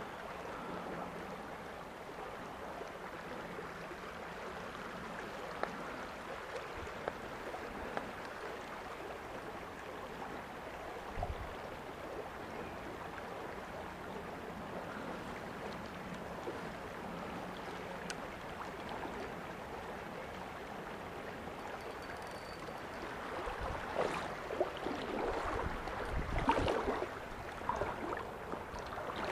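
Small stream's water running with a steady, even rush. Near the end, louder irregular rustling and thumps come in.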